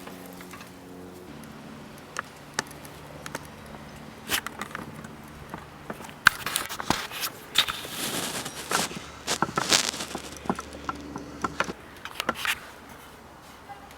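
Scattered clicks and knocks, with a busier stretch of clicking and scraping in the middle, like hard parts being handled and rubbed.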